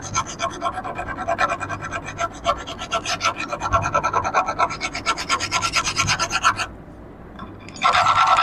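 Hand file rasping across the edge of a freshly milled keyway in a metal shaft in quick short strokes, several a second, deburring the cut. The strokes stop about two thirds of the way through, and near the end a louder, steadier scrape begins.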